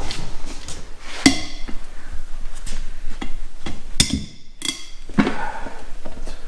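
Sharp metallic clanks and knocks of a hand tool working on a stripped-down Volvo T6 engine, some strikes ringing briefly. The loudest comes about a second in, with a cluster of strikes around four to five seconds in.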